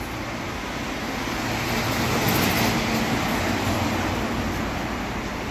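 Street traffic: a motor vehicle passing close by, its noise swelling to a peak about halfway through and then easing off.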